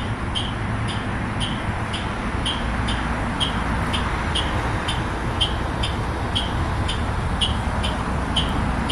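A buzzer aboard a parked New Flyer battery-electric bus gives short, high double beeps about once a second over the bus's steady hum.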